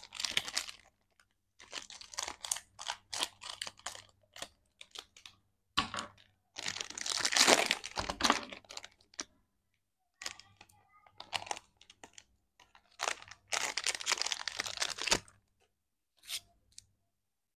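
Plastic and foil candy wrappers crinkling and tearing as they are snipped with small scissors and pulled open, in irregular bursts with short pauses. The loudest, longest crinkling comes about halfway through.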